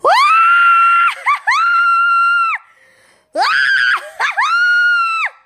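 A woman screaming in fright: four long, high-pitched screams in two pairs, each sliding up quickly and then held steady before breaking off.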